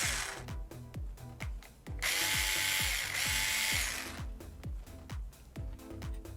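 A small electric screwdriver whirs for about two seconds, about two seconds in, as it drives the banana plug's screws. Background music with a steady beat plays throughout.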